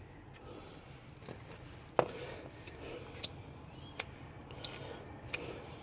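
Light clicks and taps of metal hub parts being handled while greased: one sharper tap about two seconds in, then a scattering of small ticks.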